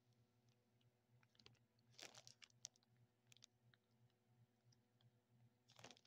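Near silence over a low steady hum, broken by faint clicks and rustles twice, about two seconds in and again near the end.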